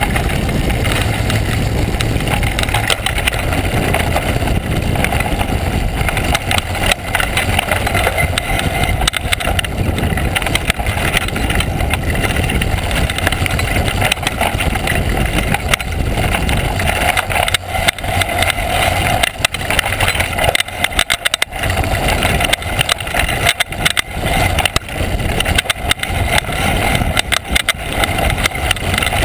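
Mountain bike descending a rocky gravel trail, heard through a GoPro mounted on the bike: steady wind rush on the microphone, with the tyres crunching over stones and a constant clatter of knocks and rattles from the bike and camera mount. The knocking gets choppier in the second half.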